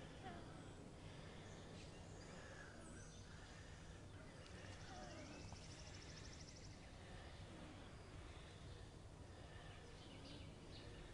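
Faint outdoor ambience: scattered distant bird chirps over a low steady hum, with a short buzzy trill about five seconds in.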